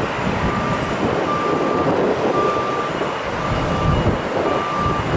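A vehicle's reversing alarm beeping about once a second, five beeps, over a steady rumble of vehicle noise.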